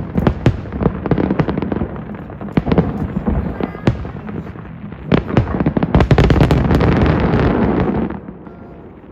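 Aerial fireworks bursting in quick succession, many sharp bangs, building to a dense crackling volley that stops abruptly about eight seconds in.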